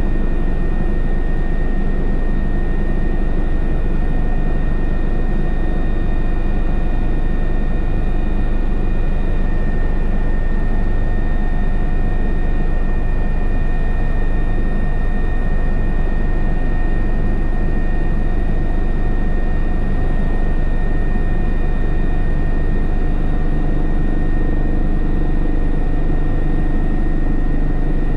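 Cabin noise of an Airbus twin-engine helicopter in flight on approach: a steady turbine whine, with several high steady tones, over the low drone of the rotor. A low hum grows slightly stronger near the end.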